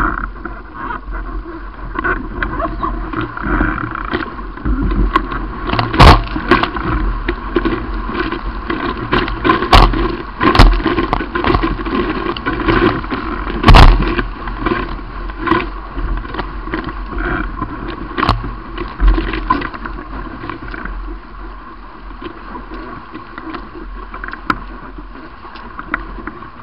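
Water rushing and slapping against a Paper Tiger catamaran's hulls as it sails at speed, heard from a camera mounted on the boat. Several sudden loud splashes of spray hit the boat and the camera, the strongest two near the middle.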